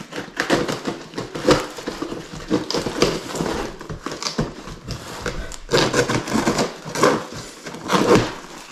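A blade slitting the packing tape on a large cardboard box: uneven scraping and crackling strokes of tape and cardboard, with a few louder strokes near the end.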